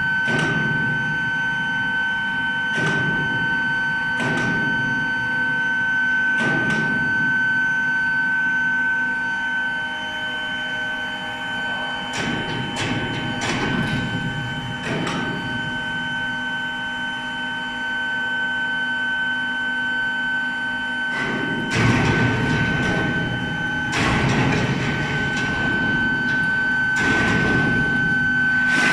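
Medium-frequency induction melting furnace running with a steady high-pitched whine. Scattered metallic knocks and clatter of foundry work sound over it, busiest about 22 seconds in and again near the end.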